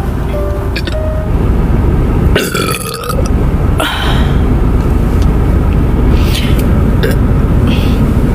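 A person belching loudly and at length, over a steady low rumble.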